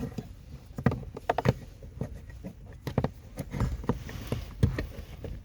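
A string of irregular light clicks and knocks, the handling noise of a diagnostic interface being plugged in and set up.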